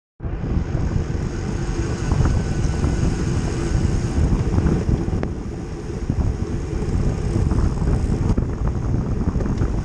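Wind buffeting the microphone of a handlebar-mounted camera on a road bike moving at racing speed in a pack of cyclists, a steady heavy rumble mixed with road noise from the tyres on asphalt.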